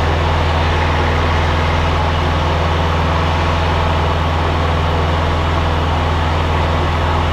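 Liberty XL2's Continental IO-240 four-cylinder engine and propeller droning steadily at climb power, heard inside the cockpit.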